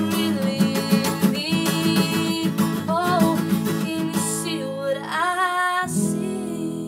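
Acoustic guitar strummed steadily under a woman's sung melody. About six seconds in, a last chord is struck and left to ring out as the song closes.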